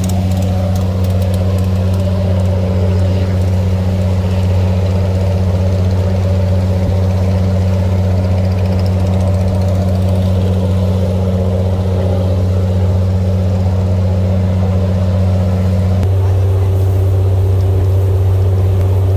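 Boat engine running steadily with a loud low hum; about three-quarters of the way through its tone shifts as one low note drops out and a higher one comes in.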